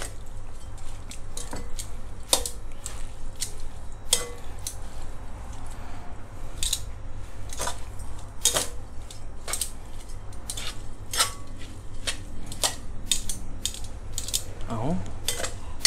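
Stainless steel tongs clicking against a glass mixing bowl while tossing glass noodles in sauce: a string of sharp, irregular clicks.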